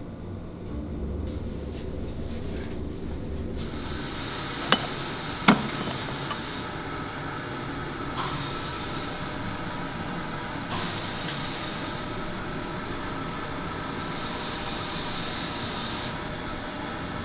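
Steady hum of workshop machinery, with two sharp metallic clinks a little under a second apart about five seconds in, and a hiss that starts and stops several times.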